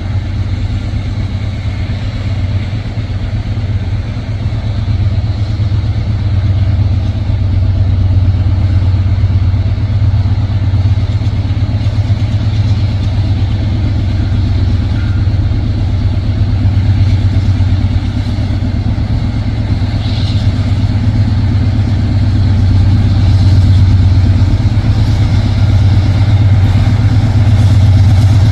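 Diesel locomotive engine running with a steady low drone, growing gradually louder.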